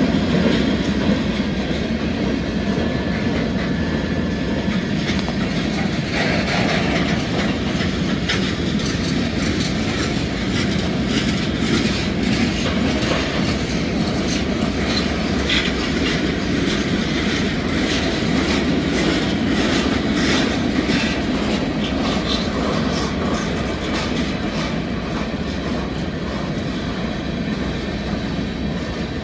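Freight cars of a Norfolk Southern manifest train rolling past: a steady rumble of steel wheels on rail with a quick, continuous clickety-clack of wheels over rail joints.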